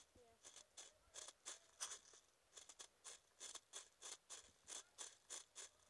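Airsoft magazine being reloaded by hand: a quick run of short ratcheting clicks, about three a second.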